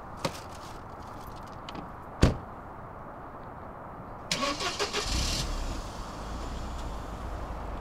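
A car door slams shut about two seconds in. Then a Mercedes-Benz C220's engine is cranked by the starter, catches after about a second and settles into a steady idle.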